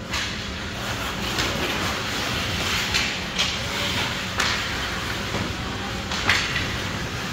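Hockey game in play: a steady scraping hiss of skates with sharp clacks of sticks and puck, about six of them, the loudest near the end.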